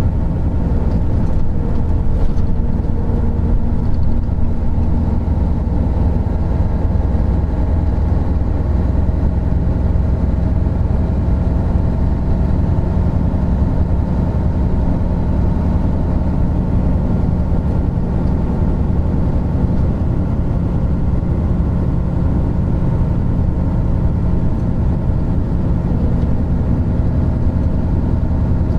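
Isuzu Gala III coach's 12PE1 V12 diesel engine running steadily, its pitch holding nearly level throughout.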